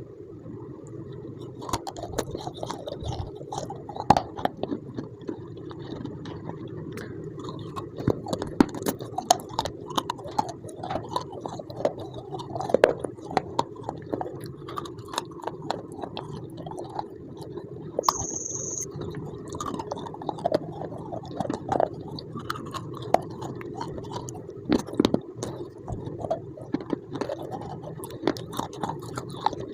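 A person biting and chewing something crunchy close to the microphone: dense, irregular sharp crunches and crackles throughout.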